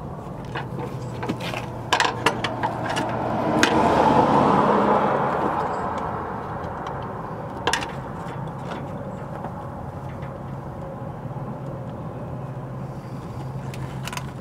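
A few sharp metal clinks as hand tools and channel locks are set on the nut at the bottom of a sleeper cab airbag. A passing vehicle swells and fades a few seconds in, the loudest sound, over a steady low hum.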